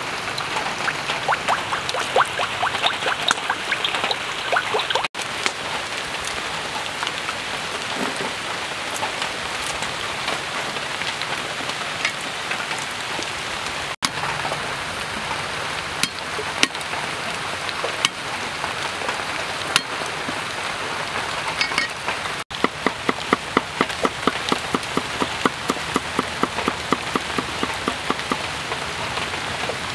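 Food sizzling in hot oil in a wok, then a cleaver mincing garlic on a wooden chopping board, with fast, even strokes about four a second in the last several seconds. A steady hiss runs underneath throughout.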